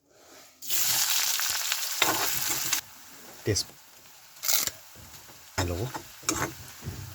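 Chopped onion tipped into hot cooking oil in a pan: a loud sizzle flares up about half a second in, drops sharply after about two seconds, then carries on as a quieter steady sizzle with a few sharp knocks of stirring.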